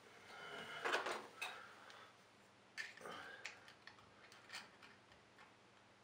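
Faint handling sounds of fingers and a screwdriver tip working a rubber O-ring into its groove inside a brass shower valve body. There is a louder rub and scrape about a second in, then a few scattered small clicks and scrapes.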